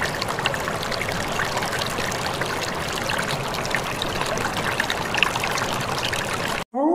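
Water splashing and running steadily over rocks from a small waterfall, with small bright droplet splashes through it; it cuts off suddenly near the end.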